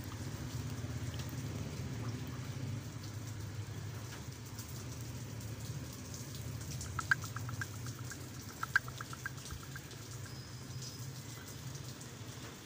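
Steady rain falling on a wet street, over a low steady hum. A little over halfway through come two short runs of quick clicks, a second or so apart.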